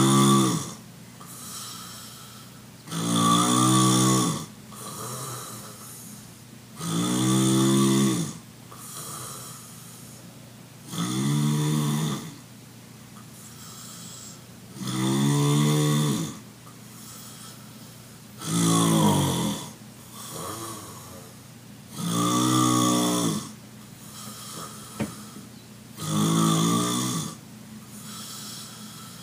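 A sleeping man snoring heavily, a loud pitched snore roughly every four seconds, each about a second long, with fainter breathing between. A single brief click sounds about 25 seconds in.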